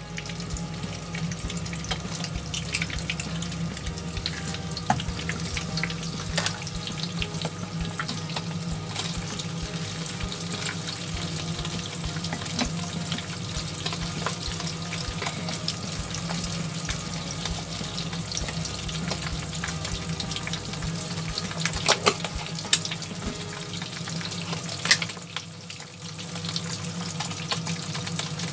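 Egg frying in hot oil in a nonstick pan: a steady sizzle with scattered crackles and pops, starting abruptly as the egg goes into the pan. The sizzle dips briefly near the end, then picks up again.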